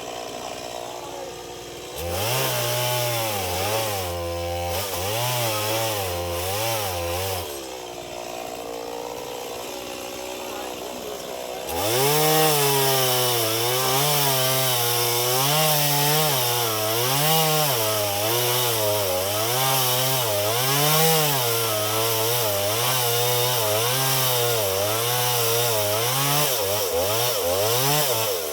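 Two-stroke chainsaw cutting through a tree trunk: the engine runs quietly, then is throttled up and bites into the wood for about five seconds, falls back, and from about twelve seconds in goes into a long cut, its pitch rising and sagging again and again as the chain loads up in the wood.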